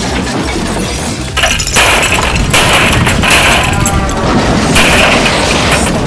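Loud music mixed with dense crashing and booming noise, getting louder about a second and a half in.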